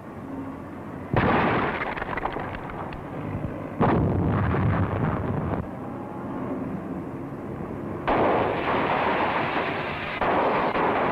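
A series of explosions and rapid crackling bangs as the ammunition in a gunsmith's shop window goes off. There are four sudden loud blasts, about a second, four, eight and ten seconds in, each trailing into sustained crackle.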